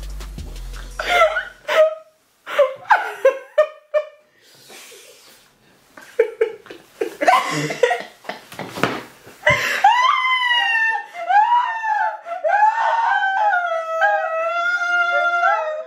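Several women laughing hard in short bursts, with giggling. From about ten seconds in, one voice holds a high, wavering, sing-song sound.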